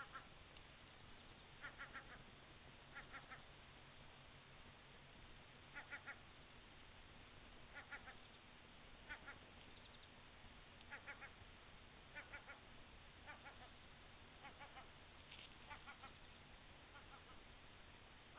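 Faint bird calls, short runs of three or four quick notes repeated every second or two over a steady background hiss.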